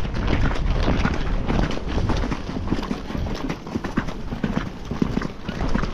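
Hoofbeats of a ridden horse, a run of irregular strikes over a steady low rumble.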